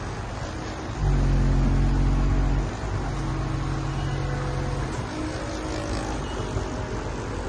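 A steady low motor hum starts about a second in. It is loudest for under two seconds, then carries on more quietly and fades out about halfway through.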